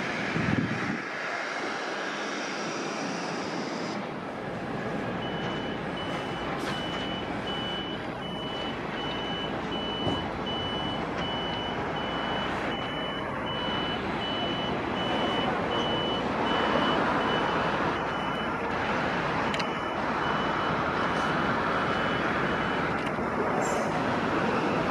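A vehicle's reversing beeper sounding a long run of evenly spaced high beeps, just under two a second, with a brief break partway through. It sits over a continuous rushing noise.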